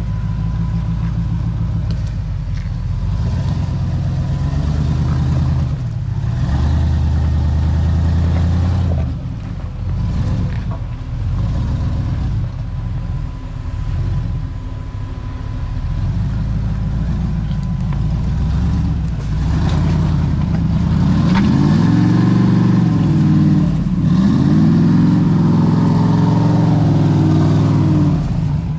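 Off-road rock crawler's engine working at low revs under load, then revved up and back down several times in quick succession during the last third.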